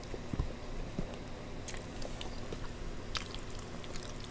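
A person chewing chicken Alfredo with wet mouth sounds and smacking, and scattered small clicks.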